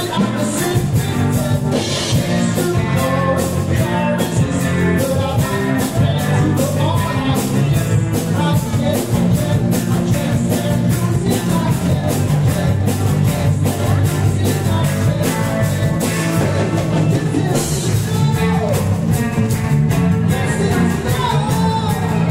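Loud music with singing and a steady drum beat.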